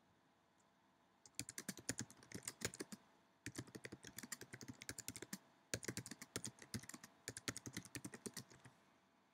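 Typing on a computer keyboard: quick runs of keystrokes in three bursts with short pauses between them, as a description of the appliance's fault is typed into a form.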